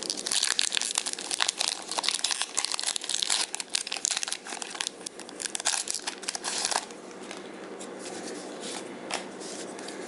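Foil wrapper of a Pokémon trading card booster pack being torn open and crinkled by hand: dense crackling for about seven seconds, then quieter, with a few faint clicks.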